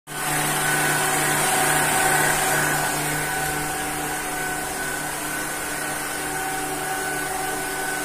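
Electric stand mixer running steadily, its motor humming at a constant pitch as it beats a pale cake mixture in the bowl.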